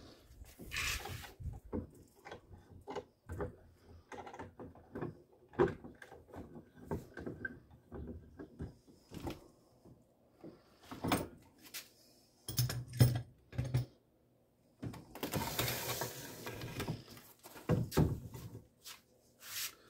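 Irregular metal clicks and knocks of C-clamps being unscrewed and handled against a wooden 2x4, and the replica belt being shifted and slid out from under the board, with a longer scraping rustle about two-thirds of the way in.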